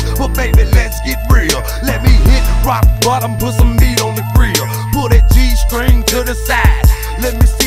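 Hip hop track playing: a drum beat of sharp hits over deep, sustained bass, with pitched melodic parts above.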